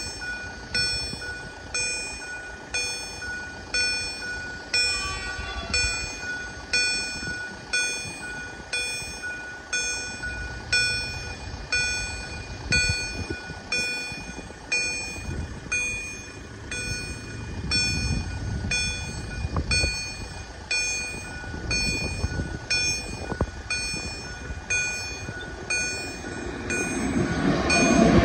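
Level-crossing warning bell ringing steadily, about one strike a second, over a low rumble. Near the end a train's noise swells quickly as it reaches the crossing.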